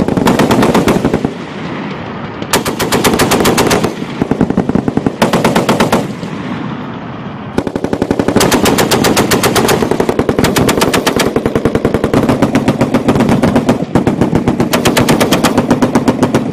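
M240 7.62 mm belt-fed machine gun firing close by in bursts of rapid automatic fire, five in all, the longest running about six seconds through the middle.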